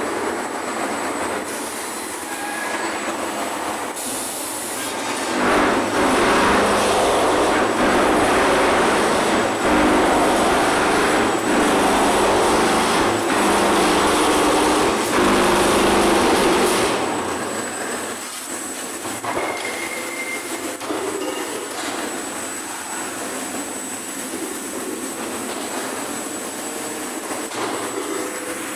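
Machinery of a concrete block-making plant running: a steady, dense mechanical rumble with a faint high whine, louder for about ten seconds from about five seconds in, then quieter.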